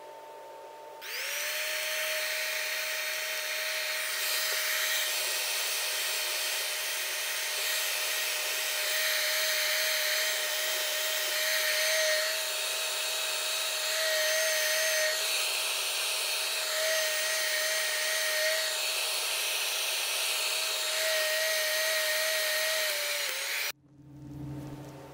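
Heat gun running, its fan motor's whine over rushing air as it heats heat-shrink tubing on a spliced extension cord. It switches on about a second in, the whine rising as the motor comes up to speed, and cuts off abruptly near the end, followed by a short low thump.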